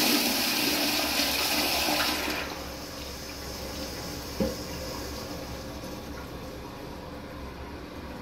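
Kohler Highline Pressure Lite pressure-assisted toilet flushing: a loud rush of water that falls away about two and a half seconds in, leaving a quieter steady water sound. A single short knock comes about halfway through.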